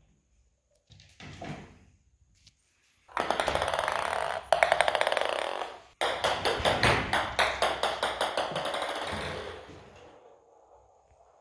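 A kitten playing among plastic toys, making a rapid rattling clatter. It starts about three seconds in, breaks off sharply at about six seconds, starts again at once and fades out over the last couple of seconds.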